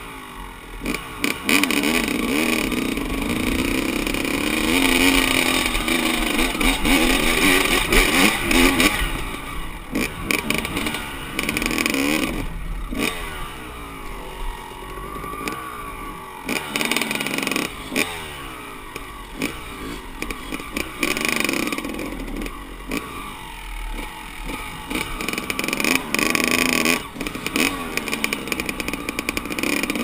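Dirt bike engines revving, the pitch rising and falling as the throttle opens and closes, loudest in the first third.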